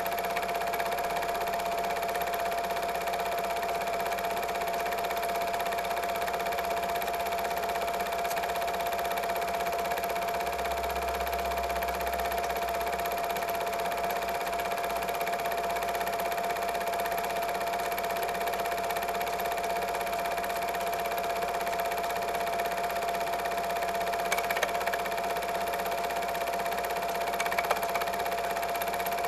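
Double 8 film projector running: a steady mechanical whirr with a constant high whine, and a couple of faint clicks near the end.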